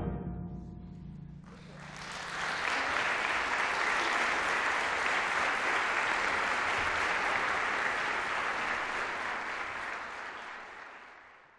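The last chord of a concert wind band rings away in the hall, then an audience applauds steadily, fading out near the end.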